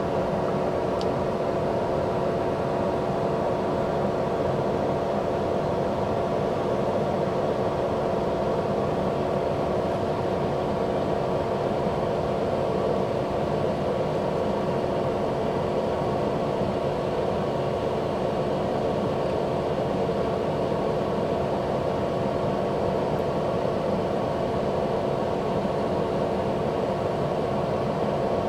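Steady machine hum: an even drone with a constant low tone, unchanging throughout.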